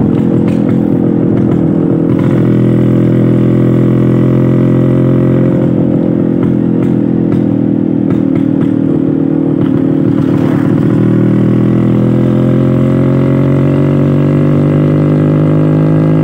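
Classic two-stroke Vespa scooter engine running under way with its exhaust broken off, giving a blatty "brot" note. The note holds steady, then climbs in pitch from about two-thirds of the way in as the scooter speeds up.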